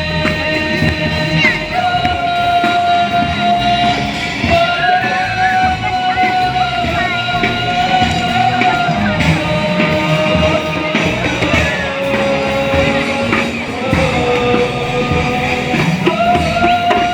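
Live music performance: a melody held in long notes that glide from pitch to pitch, over a dense, busy accompaniment.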